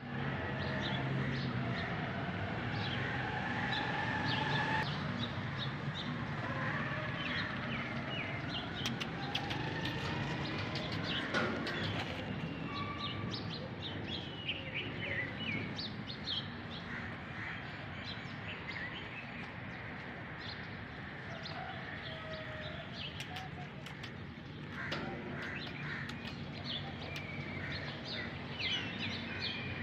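Small birds chirping and twittering, many short calls throughout.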